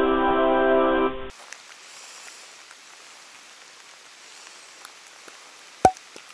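A short musical sting, one held chord, ends about a second in. Then comes a steady faint hiss of light rain, with one sharp click near the end.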